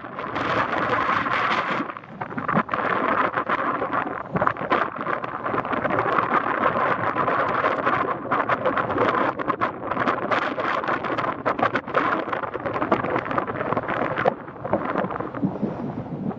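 Strong trade wind buffeting the microphone: a rough, gusting rush with frequent crackling pops. It eases briefly about two seconds in and again near the end.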